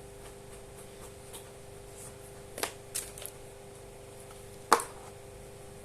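Handling of small plastic parts and packaging: a few light clicks, then one sharper click about three-quarters of the way in, over a faint steady hum.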